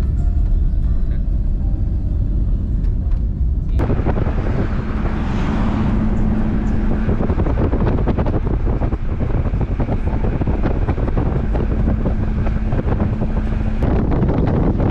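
A car driving along a road, heard from a camera at the car's side: a steady rumble of engine and tyres with wind buffeting the microphone. The sound changes abruptly about four seconds in and again near the end.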